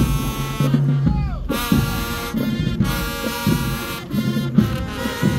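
High school marching band playing: brass chords over a low sousaphone bass line and drums, with a falling slide in the horns about a second in.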